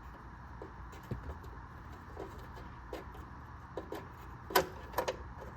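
Scattered clicks and light metal taps of hand tools being worked at a brake-line fitting, with a sharper click about four and a half seconds in and another just after, over a steady low hum.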